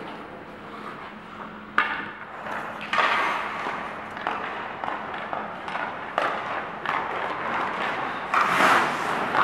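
Hockey skates carving and scraping on rink ice, broken by several sharp knocks. A longer, bright scrape of the blades comes near the end.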